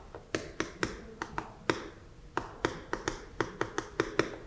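Chalk tapping and scratching on a chalkboard as words are written: a quick, irregular run of sharp taps and short scrapes, several a second, with a brief lull midway.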